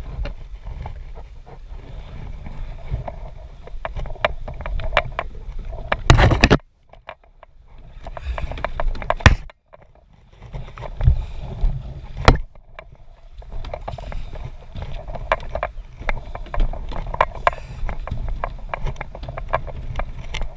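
Kayak on a moving river: paddle strokes and water splashing against the boat, with many short splashes and one loud splash about six seconds in. Twice shortly after, the sound briefly drops away almost to nothing before the splashing resumes.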